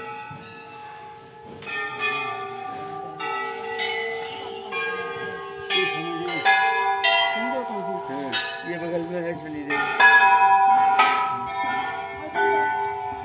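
Brass temple bells, hung in their thousands along the railings, struck by hand one after another at irregular intervals. The strikes overlap as ringing tones at several different pitches, and the loudest come about ten seconds in.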